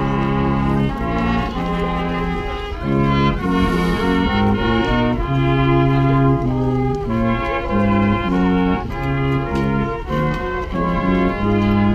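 Music played by brass instruments: a tune in full chords, each chord held for a moment before the next.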